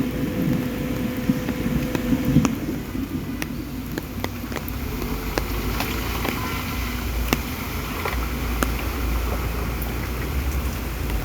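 Steady hiss of heavy rain over a running vehicle engine, with scattered sharp ticks.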